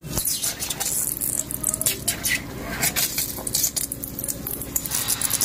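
Water spraying hard from a split in a pressurised PPR water pipe and splattering against the tiled wall, a steady hiss with rapid splashing.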